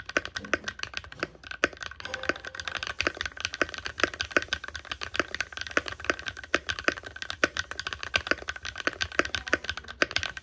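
Fast typing on a compact mechanical keyboard, its keys clacking in quick, uneven runs of several strokes a second.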